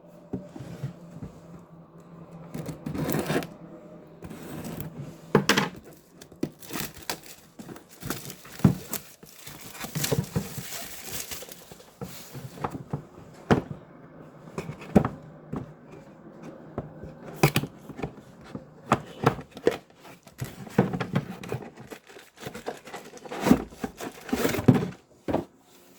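Packaging being opened and handled during an unboxing: crinkling and tearing of wrapping, with irregular clicks and knocks from handling the box and its contents.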